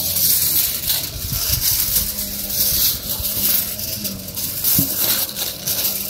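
Aluminium foil crinkling and rustling as a sheet is unrolled from the roll and smoothed flat by hand.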